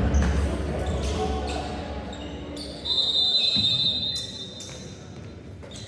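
Basketball bouncing on a hardwood gym floor as a player dribbles, with voices in the echoing gym. Music fades out over the first second or two. About three seconds in comes a high squeal lasting about a second.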